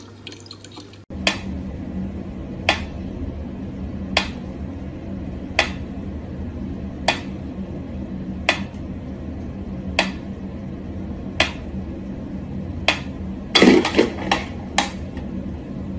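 Mechanical pyramid metronome ticking slowly and evenly, about one sharp tick every second and a half. Near the end there is a louder clatter with a few ticks in quick succession.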